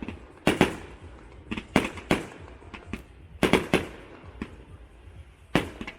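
Firework display: aerial shells bursting in about a dozen sharp bangs at uneven intervals, several coming in quick pairs, each trailing off briefly.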